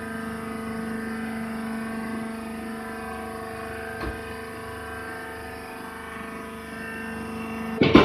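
The hydraulic press baler's electric motor and pump unit humming steadily at one pitch while the bale is tied off, with a faint click about four seconds in and a sharp knock just before the end.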